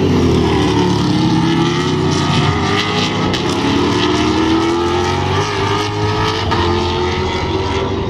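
Two Superstars Series race cars' V8 engines accelerating hard out of a corner, the pitch rising as they pull away, with a run of sharp crackles about two to four seconds in.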